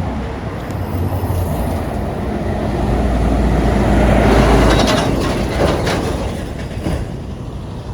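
A heavy road vehicle passing close by: a low rumble with rattling that swells to a peak about halfway through, then fades away.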